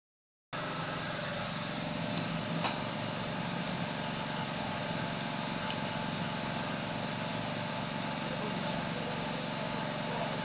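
Steady mechanical hum, like a motor or engine running, with a faint click between two and three seconds in and another near six seconds.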